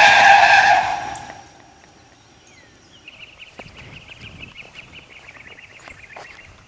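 A speeding golf cart passes and its noise fades away over about the first second and a half. Then, from about three seconds in, a faint high rapid trill continues in the background.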